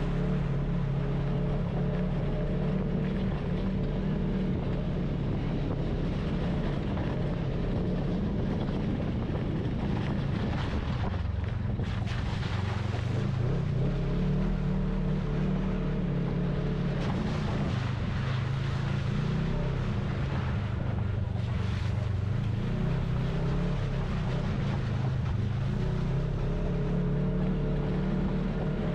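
Side-by-side UTV engine running under way, its pitch rising and falling several times as the throttle changes, over a steady haze of road and wind noise.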